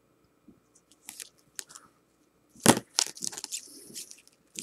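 Plastic card sleeves rustling and clicking as a stack of sleeved trading cards is thumbed through by hand. A sharp knock comes about two and a half seconds in, followed by a second of crinkly sliding and ticking.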